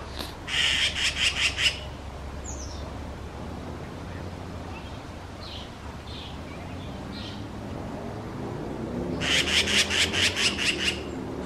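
Magpies giving harsh rattling chatter, a mobbing alarm call at a cat: one burst of about eight rapid notes at the start and another near the end, with a few short thin chirps between. A low steady rumble runs underneath.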